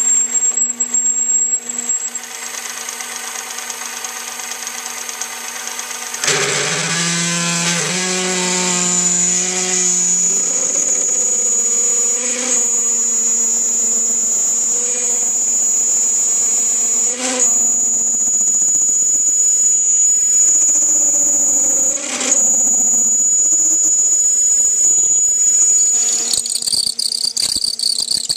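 Small metal lathe running with a steady high whine while a twist drill in the tailstock chuck cuts into an aluminium wheel blank, drilling out its centre hole. About six seconds in the sound gets louder as the cut changes, with three sharp clicks spread through the drilling.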